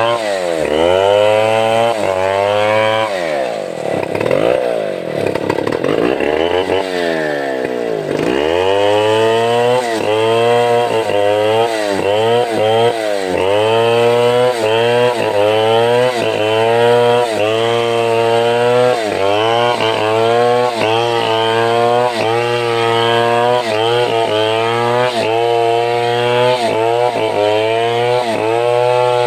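Chainsaw cutting a sengon (albizia) log into beams. The engine note sags and recovers about once a second as the chain bites into the wood, with a few deeper drops and rises a few seconds in.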